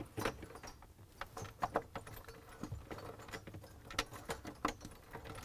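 Scattered light clicks and rustles of a refrigerator thermistor's plastic-coated lead wire and clip being handled and pulled free.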